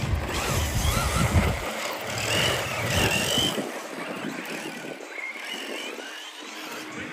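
Electric radio-controlled cars running on a track, their motors whining up and down in pitch as they accelerate and slow, over a steady rush of tyre and track noise.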